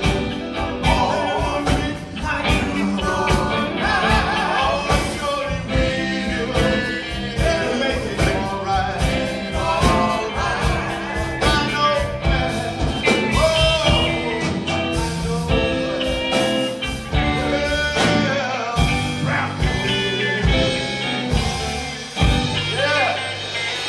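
Live gospel band playing a song with drum kit and electric guitars, with group vocals singing over it.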